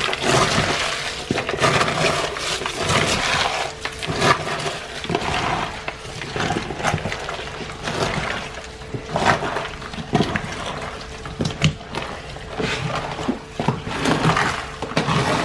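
Wet squelching and irregular crackling as bare hands knead and squeeze a raw dog-food mix of meat, vegetables and crushed eggshells in a plastic tub.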